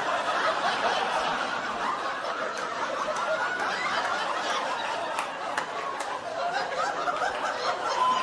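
Comedy club audience laughing steadily, with a few sharp claps about five to six seconds in.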